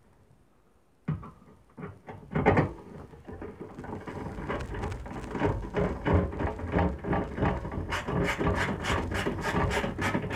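Screwdriver driving the screws that hold a replacement magnetron into a microwave oven's sheet-metal chassis: metal scraping and rubbing with many short clicks, turning into a quick run of sharp clicks, about four a second, near the end.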